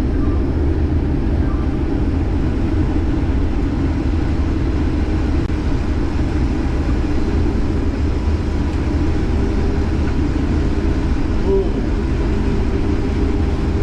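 Case IH 2388 combine running steadily while harvesting corn, heard from inside the cab as an even, unbroken drone.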